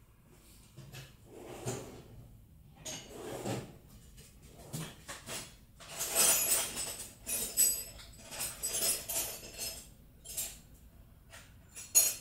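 Metal hand tools clinking, knocking and scraping against a cast-iron exhaust manifold in irregular bursts, some with a short metallic ring. It is busiest about six seconds in, with one sharp clink near the end.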